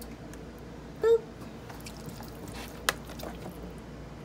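Hands kneading and turning raw, seasoned oxtails in a plastic container: faint wet handling noises and one sharp click a little before the end. About a second in comes a brief, loud pitched squeak.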